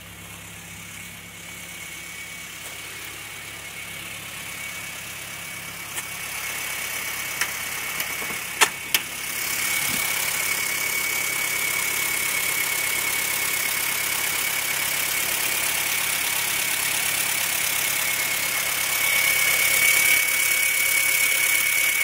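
Turbocharged Honda B18C GSR engine idling steadily, with a steady high-pitched whine over it. A few sharp clicks come about six to nine seconds in, after which the engine sounds louder.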